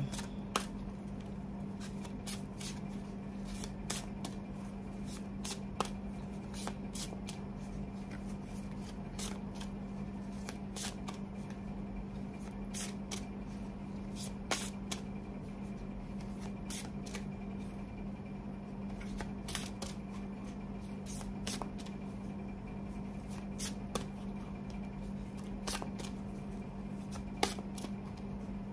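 A deck of oracle cards being shuffled by hand: a long run of soft, irregular card slaps and clicks.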